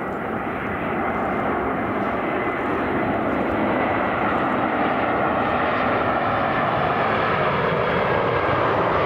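Airbus A320 airliner's jet engines on final approach, a steady rushing engine noise with a faint high whine, growing louder over the first few seconds as the aircraft closes in, then holding.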